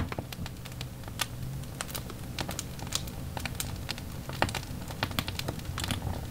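Wood fire crackling and popping: irregular sharp snaps of uneven strength over a low steady rumble.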